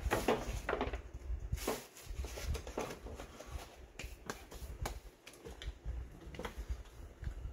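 Scattered light clicks, taps and rustling from hands working at a stripped car door's inner panel, at irregular moments over a low background rumble.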